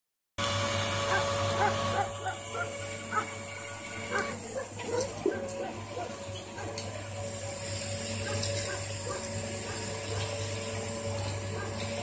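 The electric motor of an HBT30-M concrete mixer pump running with a steady hum. Short barking calls, like a dog's, sound several times in the first half.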